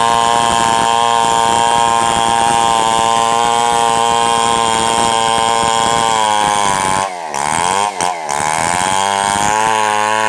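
Tuned-up New West 707 chainsaw engine running at steady high revs. From about seven seconds in, the revs drop and pick back up several times in quick dips.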